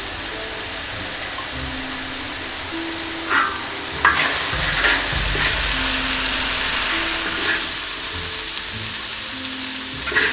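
Konjak tofu and chicken sizzling steadily in a large wok, with sharp metal ladle scrapes against the pan about three to five seconds in and again near the end.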